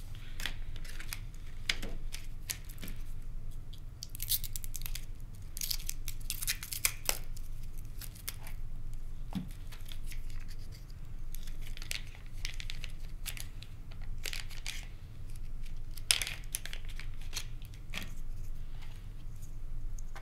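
Plastic and card packaging of a LiPo battery being torn open and crinkled by hand: irregular rustling and crackling with a few sharper ticks.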